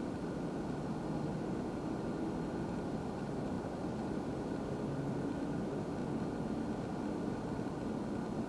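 Steady low drone of distant engine noise, with a faint, even higher hum over it.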